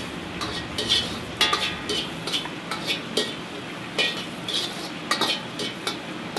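Metal wok ladle scraping and clinking against a wok in irregular strokes, several a second, as sliced garlic and jalapeño are stirred on low heat, with a light sizzle underneath.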